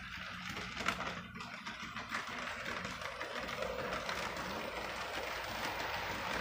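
HO scale brass model steam locomotive and freight cars rolling past, a steady rhythmic mechanical clatter that grows a little louder as the train nears, with one sharp click about a second in.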